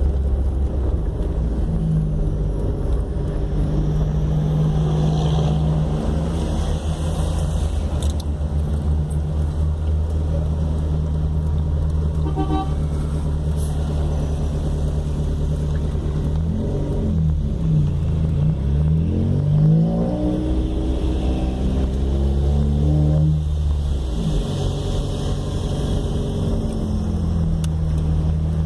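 Nissan Sunny's 1.6-litre 16-valve four-cylinder engine idling through a cut-down exhaust, with the factory muffler removed and the pipe exiting at the side before the rear wheel. Partway through, the throttle is blipped several times, the revs rising and falling, before it settles back to idle. A brief beep sounds about twelve seconds in.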